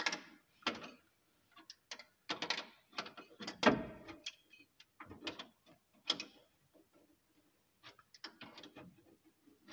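The metal nut of a flexible mixer hose pipe being screwed by hand onto an angle valve: a run of irregular metallic clicks and scrapes, the loudest a little after three and a half seconds.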